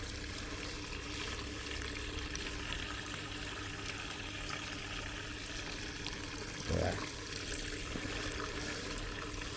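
Water running steadily into the drum of a compact camping washing machine as it fills for a wash cycle. There is a short low sound about seven seconds in.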